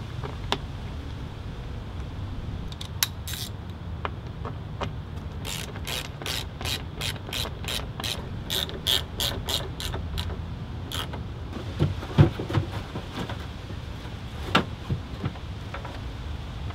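Hand ratchet wrench clicking in a steady run of about three clicks a second as a fastener on the car's front end is driven in, followed by a couple of sharp knocks of parts being fitted, the loudest about twelve seconds in.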